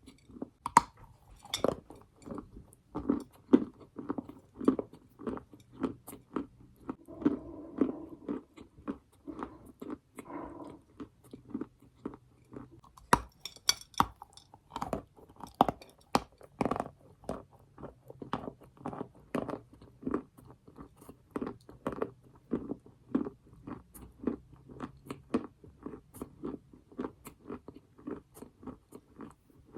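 A person biting and chewing lumps of edible earth (eating chalk and clay): a steady run of crunches about twice a second, with a sharper, crackling bite about halfway through.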